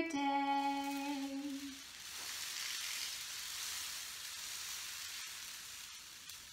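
Homemade rain stick, a long cardboard wrapping-paper tube with rice running down over aluminium-foil coils inside, making a soft, steady rain-like hiss that starts about two seconds in and slowly fades. A woman's sung note is held over the first two seconds.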